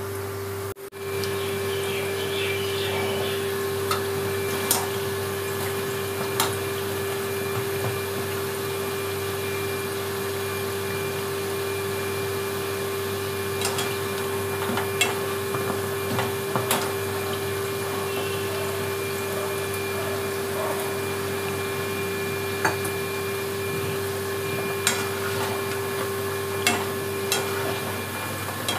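Urad-dal vadas deep-frying in hot oil in a wok, sizzling steadily, with a dozen or so sharp clicks of a wire spider skimmer against the pan. A steady mechanical hum runs under it and stops just before the end.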